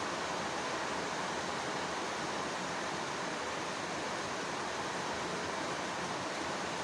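Soft rain falling steadily, an even hiss of many small drops with no single drop standing out.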